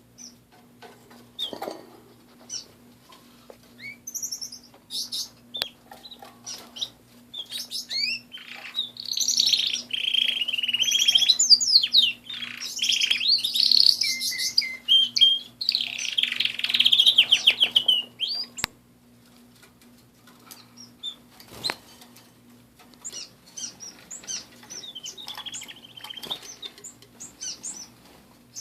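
Domestic canaries in an aviary chirping, with one bird breaking into a loud, fast trilling song for about ten seconds mid-way before the chirps go back to scattered calls. A faint steady hum runs underneath.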